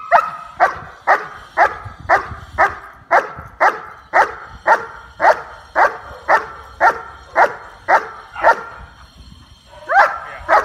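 German Shepherd barking in a steady rhythm, about two barks a second, with a short break about nine seconds in before two more barks.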